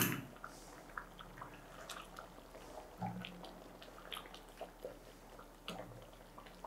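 A silicone spatula stirring thick, creamy paneer butter masala gravy in a pan: faint, scattered soft wet squelches and light scrapes.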